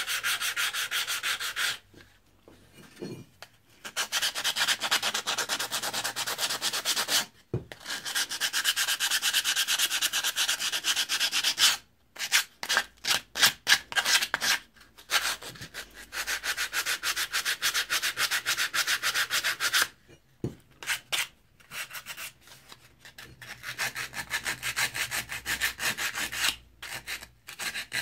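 Sandpaper rubbed by hand over an old hatchet's steel head in quick back-and-forth strokes. It comes in runs of a few seconds each, with short pauses between them.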